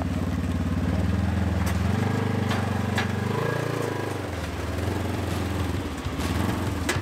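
Polaris side-by-side UTV engine running at low speed as the machine drives up onto a trailer, its note rising about two seconds in and dying down after about four seconds, with a few sharp clicks.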